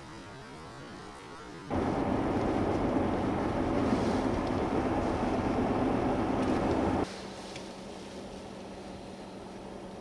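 Strong blizzard wind rushing and buffeting the microphone for about five seconds, starting suddenly about two seconds in and cutting off suddenly about seven seconds in. Before and after it there is only a faint steady hum.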